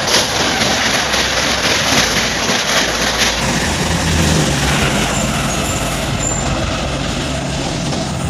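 Express train hauled by a WAP-7 electric locomotive running at speed: loud, steady wheel-on-rail rumble with rapid clattering for the first few seconds, then a steady low hum underneath.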